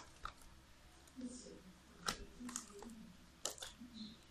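Soft, sticky clicks and squelches from a runny homemade slime being handled, several short wet pops spread through the moment, all faint.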